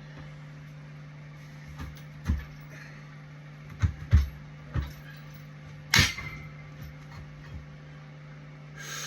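Empty barbell and squat rack during a light warm-up set: a few low thuds and knocks, then a sharp metal clank with a brief ring about six seconds in, over a steady low hum. A short hiss comes near the end.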